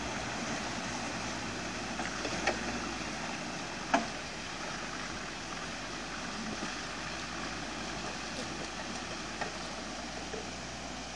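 Land Rover Defender Td5's five-cylinder turbodiesel running as the truck wades slowly through a shallow river, with water churning and splashing around its wheels. A few sharp knocks stand out, the loudest about four seconds in.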